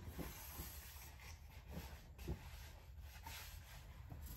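Faint handling of cardboard packaging: a printed card sleeve rubbing and sliding against the box, with a few soft taps.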